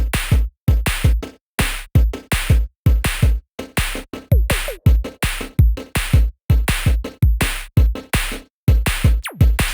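Electronic intro music with a punchy drum-machine beat and deep bass hits, about two to three a second, with a few quick falling synth sweeps.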